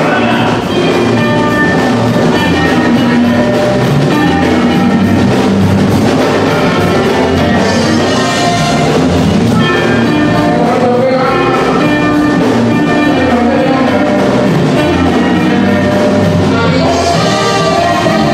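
Loud Mexican dance-band music with drums and horns playing to a steady beat.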